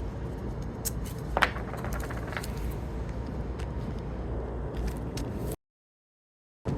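Wind buffeting the microphone as a low rumble, with scattered scraping and light clicking from handling work materials. It cuts off suddenly about five and a half seconds in and returns near the end.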